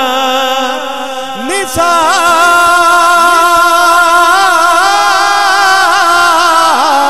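Male voice singing a Punjabi devotional kalam (naat) into a microphone. About one and a half seconds in, the voice slides up into one long note, held for several seconds with a wavering vibrato.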